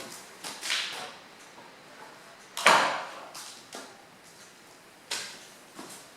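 Handling noises: a series of separate knocks and scraping sounds, the loudest a sharp knock with a short scrape about two and a half seconds in. The saw's motor is not running.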